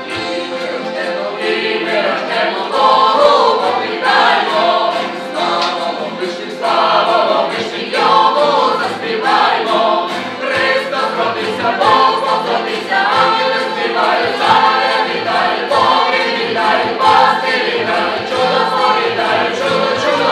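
A group of men and women singing a song together in several voices, accompanied by accordion and acoustic guitar, with bass and drums keeping a steady beat.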